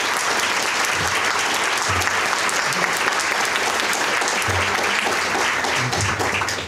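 Audience and panel applauding at a steady level after a speech, dying away at the end.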